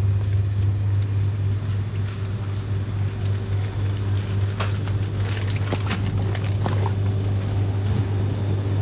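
Steady low machine hum, with a few light clicks and rustles about halfway through.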